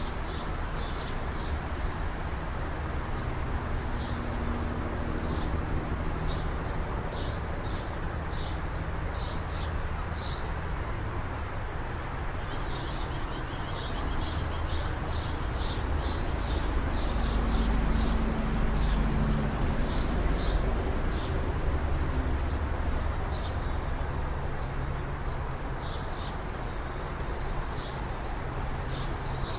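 Small birds chirping, short high chirps repeated throughout, over a steady low rumble that swells in the middle and fades again.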